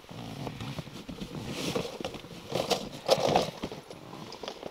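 Irregular rustling with scattered clicks and knocks, louder about three seconds in.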